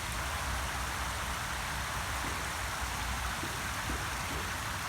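Steady rushing noise, water-like, with a low uneven rumble underneath.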